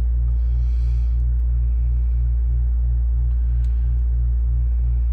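Air-conditioning unit running with a loud, steady low hum that pulses about three times a second.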